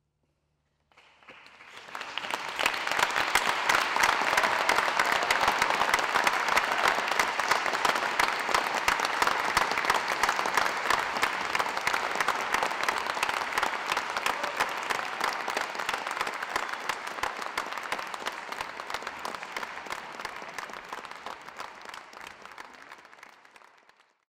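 Audience applauding: the clapping starts about a second in, builds quickly to a steady dense applause, then slowly dies away near the end.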